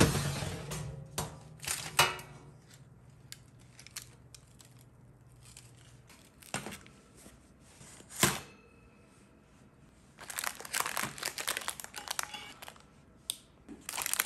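A metal springform cake pan knocking as it is handled out of the oven, with a low hum and a few clicks and knocks, a sharp click about eight seconds in. In two spells near the end, a paper cake liner crinkles and tears as it is peeled off the baked cake.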